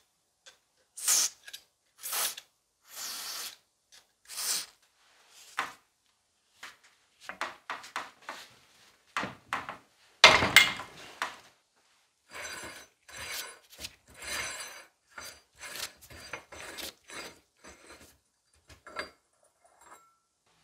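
Several short hisses of an aerosol lubricant sprayed through a straw onto the rusted threaded joint of an old air hammer. About ten seconds in, a loud crack as a strap wrench breaks the joint loose, then a run of gritty scraping and light ticks as the barrel is unscrewed from the handle.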